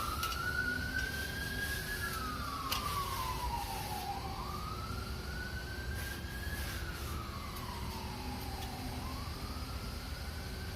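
Emergency vehicle siren in a slow wail, its pitch rising for about two seconds and falling for about two seconds, over and over, with a few faint clicks.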